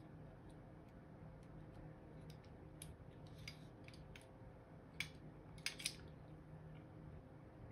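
Small sharp clicks of metal and plastic pistol parts as the slide, guide rod and recoil spring of an airsoft gas blowback pistol are fitted together by hand, the loudest about five seconds in and a quick pair just before six seconds, over a faint low hum.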